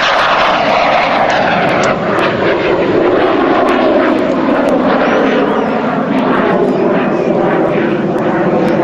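Fouga Magister jet trainer's twin Turbomeca Marboré turbojets on a low pass: loud, steady jet noise whose pitch falls as the aircraft goes by.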